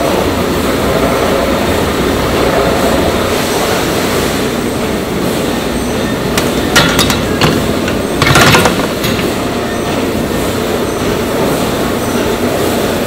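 Steady running noise of meat-processing machinery, with a few sharp metal clanks about seven seconds in and a louder cluster of clanks about eight and a half seconds in.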